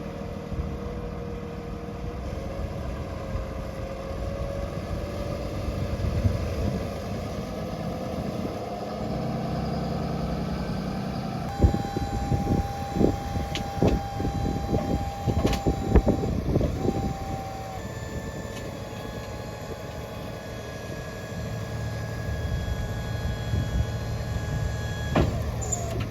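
Freightliner M2 box truck engine running with a steady rumble. About halfway through, a steady high tone sounds for about five seconds among a series of sharp clicks and knocks, then a fainter steady tone follows.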